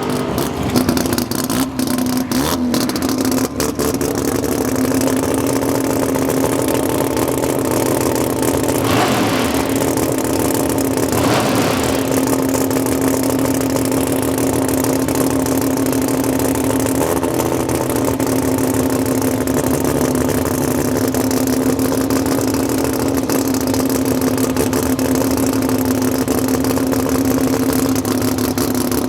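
Race car engine running steadily at one unchanging pitch, with a few sharp cracks in the first few seconds.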